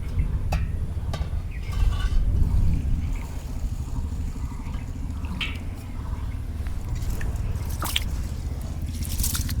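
Basmati rice being washed by hand in a pot of water: a few scattered drips and splashes over a steady low rumble.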